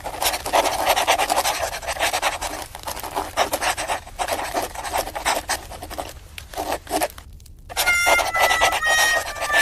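Rapid, continuous rustling and scuffling of two cats wrestling on a floor. Near the end it gives way to a few short, steady tones that step slightly in pitch.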